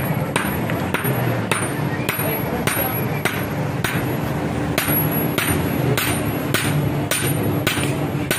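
Blacksmith's hammer striking a steel sickle blank on an anvil in a steady rhythm, about two blows a second, over a steady low hum.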